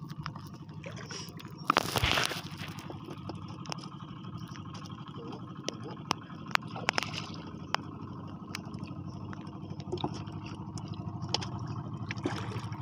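Water lapping and sloshing against a small wooden outrigger boat's hull, with a louder splash about two seconds in and scattered clicks and knocks, over a steady low hum.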